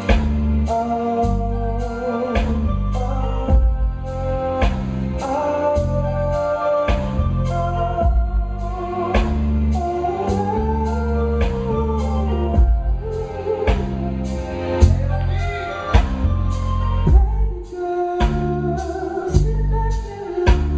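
R&B/soul song played live: drums with a steady beat of roughly two strokes a second, heavy bass, and sung melody lines.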